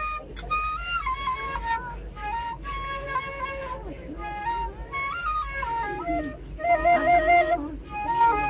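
Bamboo flute (kolalu, an Indian side-blown flute) playing a melody of held notes that step up and down, with a quick warbling trill about seven seconds in.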